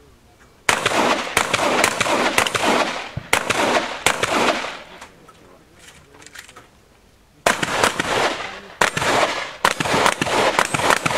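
Shotgun shots fired in quick succession, each ending in an echo. One rapid string lasts about four seconds, there is a pause of about three seconds, and then a second rapid string follows.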